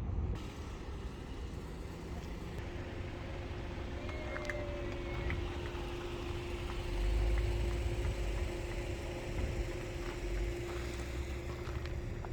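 Road vehicle noise: a steady low rumble with a constant hum, the rumble swelling about seven seconds in.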